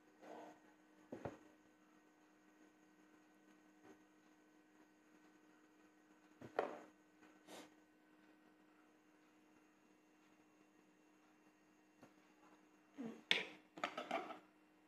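Quiet room with a steady low electrical hum, broken by a few short, soft scrapes and knocks from a small kitchen knife cutting the peel of a ripe mango and the fruit being handled. A quick cluster of these sounds comes near the end.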